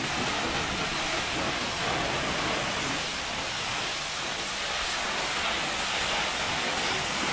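High-pressure washer jet spraying steadily onto the wet floor panels of a livestock truck's body, an even hiss of water with no breaks.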